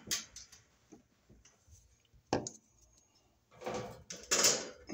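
A metal cord connector clamp clicking and knocking against the sheet-metal back panel of an electric range as it is worked into the access opening, with a sharp knock about two seconds in and a run of louder scraping and rattling near the end.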